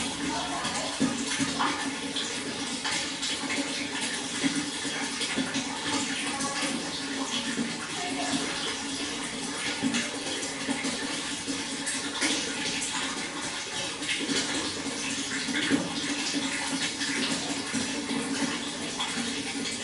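Water flowing and splashing steadily, with many small splashes through it.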